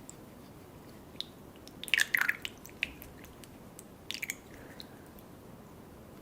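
Close-miked wet chewing and biting of baby cuttlefish in sauce: bursts of short, sticky clicks about two seconds in and again about four seconds in.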